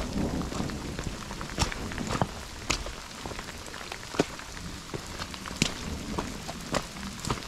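Heavy rain falling, with single drops striking close by as sharp, irregular ticks. A low thunder rumble trails off in the first moment.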